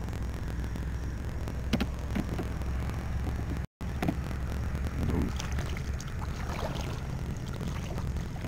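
Kayak sitting on calm water: a steady low rumble with a few light knocks and faint water sounds against the hull. The sound drops out for an instant about halfway through.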